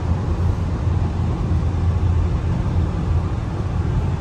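Steady low road rumble of a car driving at freeway speed, heard from inside the cabin.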